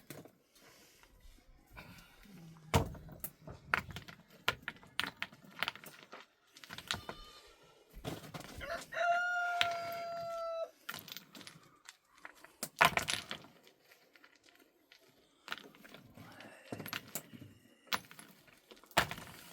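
A rooster crows once, a long held call of about two seconds near the middle, amid scattered sharp clicks and knocks.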